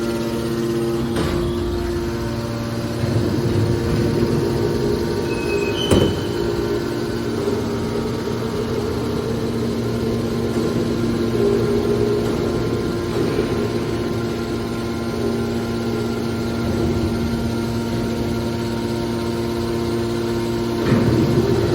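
Hydraulic ferrous scrap baler running: the steady hum of its pump and motor, with rougher surges of grinding noise and a single sharp bang about six seconds in.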